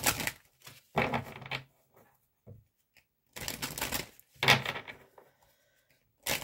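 Oracle cards being shuffled by hand, in about five short bursts of rapid card-on-card rustling with brief pauses between them.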